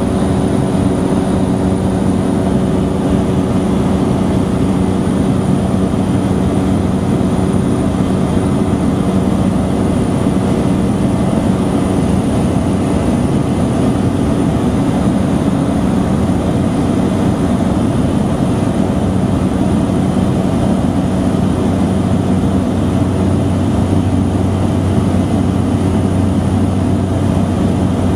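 Cessna light airplane's piston engine and propeller droning steadily in cruise, heard from inside the cabin. A deeper hum joins about three-quarters of the way through.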